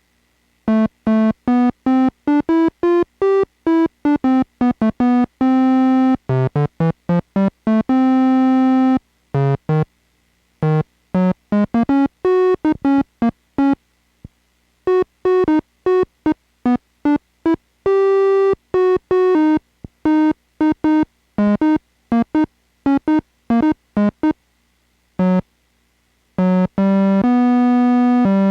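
Suzuki Omnichord playing short electronic notes in quick rising and falling runs, like strums across its strum plate, with a few held notes between them and brief pauses. The instrument is sounding again after a repair of a no-sound fault.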